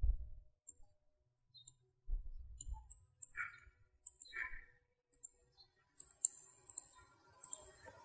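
Computer mouse buttons and keyboard keys clicking at a desk: a dozen or so short, sharp clicks at uneven intervals, coming faster near the end, with a few low dull thumps early on.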